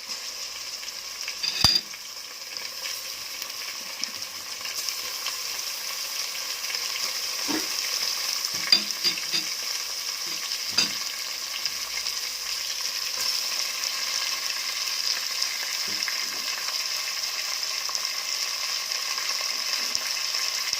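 Pieces of meat freshly added to hot butter and softened onion, sizzling in a pot with a steady frying hiss that grows slowly louder over the first several seconds. A few sharp clinks, like a spoon against the pot, come near the start and again around the middle.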